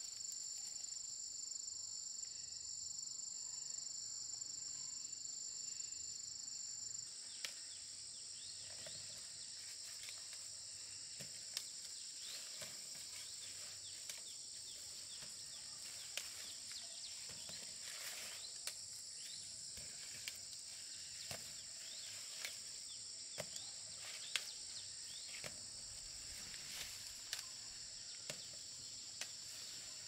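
Steady high-pitched insect chorus. From about seven seconds in, it is joined by scattered rustling and snapping of dry corn stalks and leaves as ripe corn ears are broken off.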